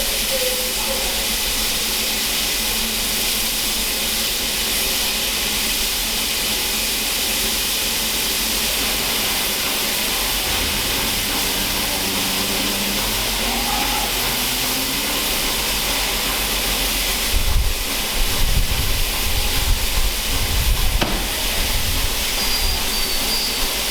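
Steam hissing steadily and loudly from the LNER Peppercorn A1 steam locomotive 60163 Tornado. A run of uneven low thumps comes in about three-quarters of the way through.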